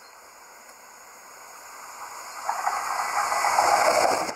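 Passenger train approaching and arriving alongside at speed: its running noise grows steadily louder, swelling sharply over the last two seconds as the front of the train draws level.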